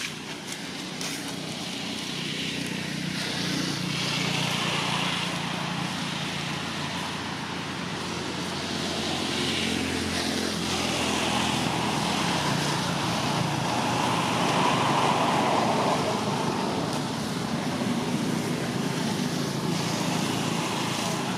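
Motor traffic: a steady low engine hum with broad swells of noise about three times, as vehicles go by.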